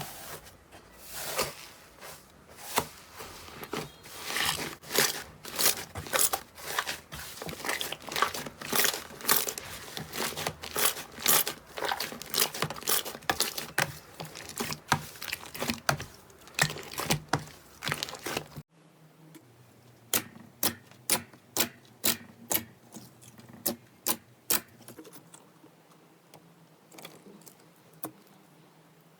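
Slime being squeezed and poked by hand, giving a dense run of crackling pops and clicks. After a sudden cut about two-thirds of the way through, a different clip gives sharper, more separate pops.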